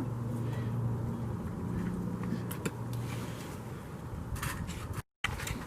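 A steady low mechanical hum that fades out after a few seconds, with scattered light clicks and taps. The sound drops out completely for a moment near the end.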